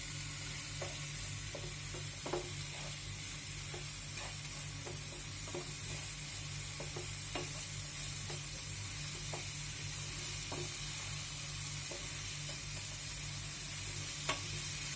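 Chopped onions with cumin, mustard seeds and green chillies sizzling steadily in hot oil while being stirred and sautéed toward golden brown. Scattered light clicks and scrapes come from the spoon against the pan.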